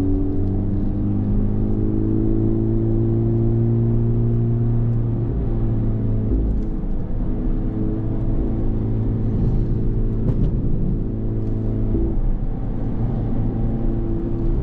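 Honda FL5 Civic Type R's turbocharged 2.0-litre four-cylinder engine heard from inside the cabin while driving: a steady engine hum with road noise. Its pitch rises slightly over the first few seconds and changes about five and again about twelve seconds in.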